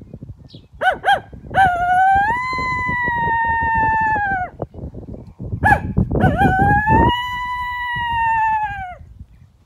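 Coyote howls blown on a mouth diaphragm call through a Game Changer amp horn turned around to muffle the sound. Two howls, each opening with a couple of short barks and then one long held note that falls away at the end.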